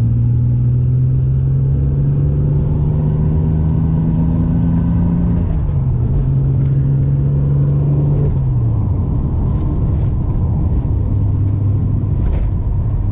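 Holden Commodore engine accelerating through the gears of its manual gearbox: the engine note climbs, drops at an upshift about five and a half seconds in, climbs again, drops at a second upshift near nine seconds, then settles to a steady cruise. The car runs with its tail shaft bolts freshly tightened, and the vibration they caused is gone.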